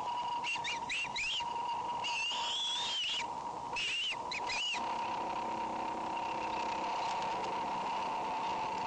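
Bald eagle calls: a run of high, thin, chittering calls in the first half that stop about five seconds in, over a steady electrical-sounding hum.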